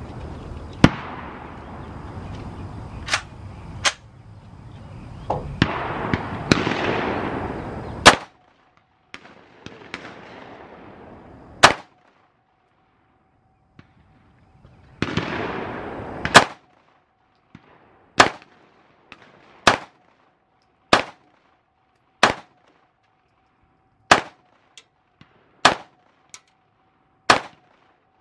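Gunshots from a firearm fired in slow, deliberate single aimed shots at a target, about a dozen in all, spaced roughly a second and a half apart through the second half.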